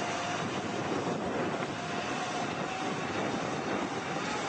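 Small engine and propeller of a homemade hovercraft running steadily: a dense rushing noise with a faint steady hum.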